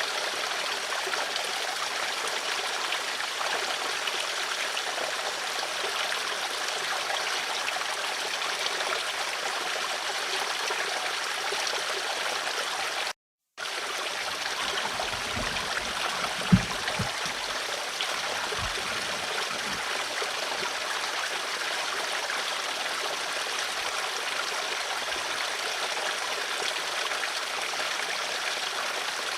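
Flowing water running steadily with an even rushing babble. It cuts out to silence for a moment about 13 s in. Just after, a few soft low thumps and one sharp knock are heard.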